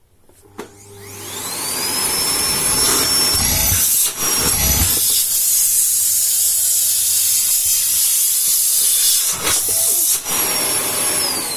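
High-speed electric appliance motor switched on and spinning up with a rising whine, then running loud and steady with two brief dips. Near the end it is switched off and winds down with a falling whine.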